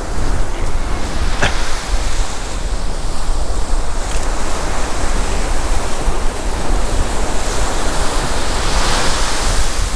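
Ocean surf washing onto the beach, a steady rushing noise, with wind buffeting the microphone; a single sharp click about a second and a half in.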